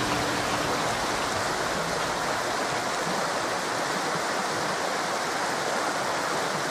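Steady rushing of flowing water, like a stream or small waterfall, an even hiss with no breaks.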